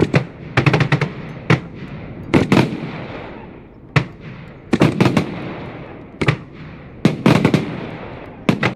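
Fireworks bursting in irregular volleys of sharp bangs, several in quick succession, each volley trailing off in a fading hiss.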